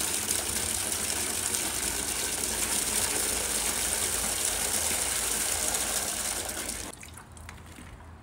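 Water gushing steadily from a tap, cut off suddenly about seven seconds in.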